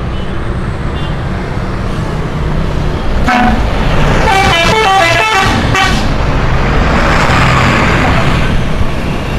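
Indonesian bus 'telolet' musical horn playing one short note, then a quick run of notes stepping up and down, over the steady rumble of the bus engine and traffic. A rushing noise follows near the end.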